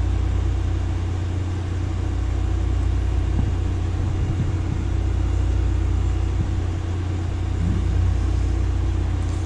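DVD drive in an eMac spinning a disc, a steady low rumble with a faint whir.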